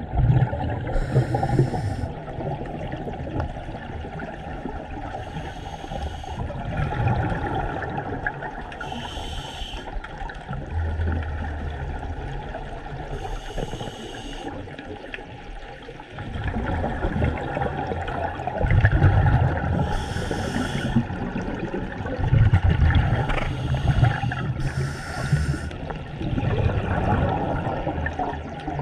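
Scuba diver breathing through a regulator underwater: a short hiss of inhalation every four to five seconds, about six in all, with rumbling bursts of exhaled bubbles between them.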